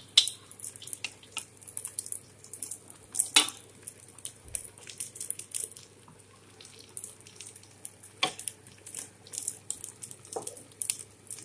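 Pot of chicken curry bubbling on the stove while a wooden spoon stirs through it: a soft, irregular crackle of small pops, with a few louder clicks around three, eight and ten seconds in.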